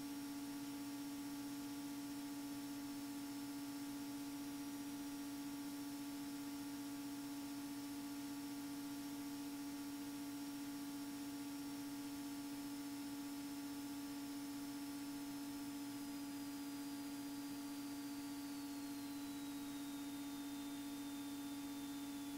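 Steady low hum with a stack of faint overtones and a light hiss on the Beechcraft Bonanza A36's cockpit audio feed, the engine itself barely coming through. A faint high whine runs over it and slides down in pitch over a few seconds near the end.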